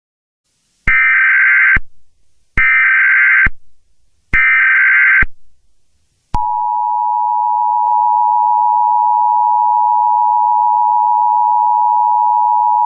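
Emergency Alert System activation tones: three short, identical bursts of the screeching SAME digital header, then, about six seconds in, the steady two-tone EAS attention signal, which holds without a break. The header bursts and attention signal mark the start of a new alert, ahead of its voice message.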